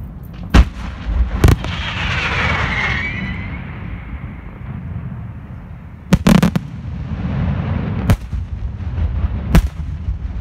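Senatore Fireworks aerial shells bursting with sharp bangs: two in the first second and a half, a quick cluster of three a little past the middle, then two more near the end. A crackling, fizzing hiss follows the second bang, over a steady low rumble.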